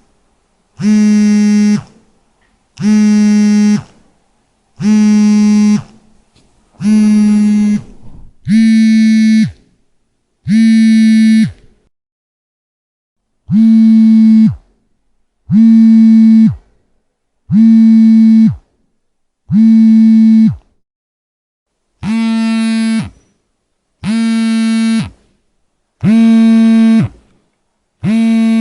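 Mobile phone on vibrate, buzzing in pulses about a second long, repeating roughly every two seconds, with one longer pause about halfway through.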